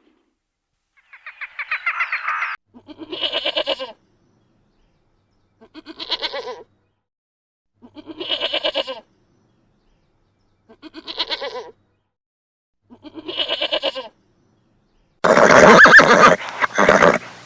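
Farm animal bleating: about six wavering calls, each roughly a second long and two to three seconds apart, the first higher than the rest. A louder, harsher sound cuts in near the end.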